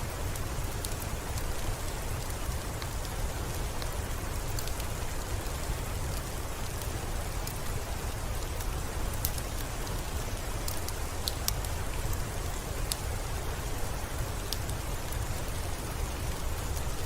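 Steady soft rain with a low rumble underneath, mixed with sparse, irregular crackles and pops of a wood fire in a fireplace.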